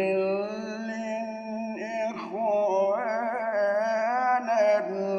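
A man chanting Quran recitation in the slow, melodic mujawwad style: long held notes, the pitch gliding upward about two seconds in, then wavering ornaments on a held vowel.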